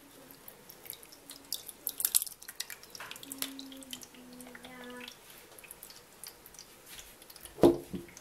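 Soft cottage-cheese curd and whey sliding and dripping out of a glass jar into a cheesecloth-lined plastic colander, with small wet splashes and clicks of jar and spoon. A dull thump comes near the end.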